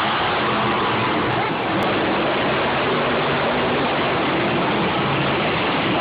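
Monster truck engines running hard in an indoor stadium arena: a loud, steady wash of noise with faint engine tones underneath, without a break or a single stand-out impact.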